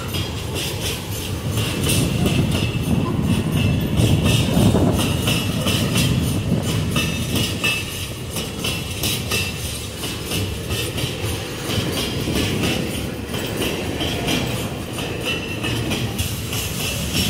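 Empty steel iron-ore gondola wagons rolling past close by: a steady low rumble of the wheels on the rails, with repeated clicks and clatter as the wheels cross rail joints.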